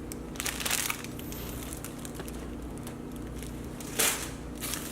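Food packaging crinkling and rustling as bagged produce is handled, with one burst about half a second in and a louder one about four seconds in.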